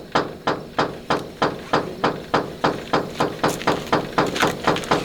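Rapid, evenly spaced blows of a hand tool striking something, about three a second, speeding up slightly toward the end.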